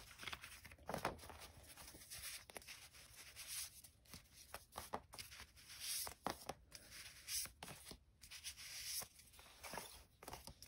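Paper envelopes being handled: soft rustling and irregular light taps and slides as they are shuffled and set down one by one on a paper-covered table.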